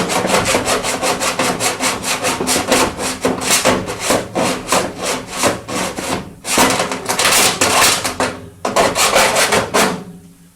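Hand file scraping the cut edge of a hole in a sheet-metal duct in quick back-and-forth strokes, about four a second, with two short pauses before it stops near the end. The rough edge is being smoothed so the damper blade won't rub as it turns inside the duct.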